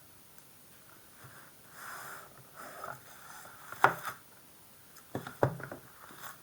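Pokémon card packaging being handled: rustling for a second or two, then a few sharp clicks and taps, the loudest about four seconds in.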